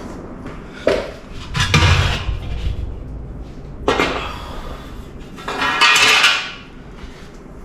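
Cut sheet-metal motorcycle rear fender being handled and set against a tyre: a few metal clanks and knocks, the heaviest about two seconds in, then a longer scraping rustle about six seconds in.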